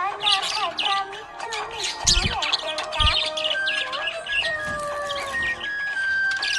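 Budgerigars chirping and warbling in quick, busy twitters over background music that holds and steps between notes.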